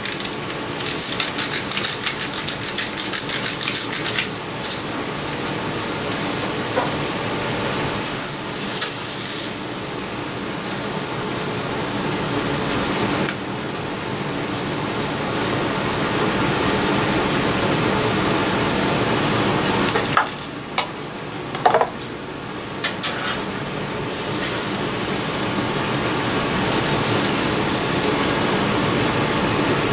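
Spinach and pan juices sizzling steadily on a hot flat-top griddle, with a few sharp clicks of metal tongs and utensils about two-thirds of the way through.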